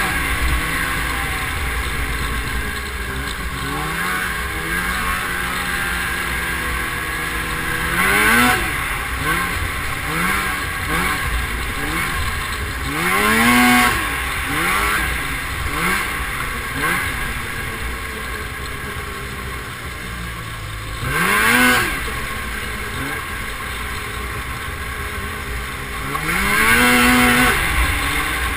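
Snowmobile engine running along a trail, its pitch climbing and dropping again and again as the throttle is worked, with four louder surges of revving.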